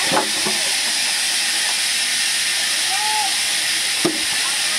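Large sawmill band saw running, a steady high hiss.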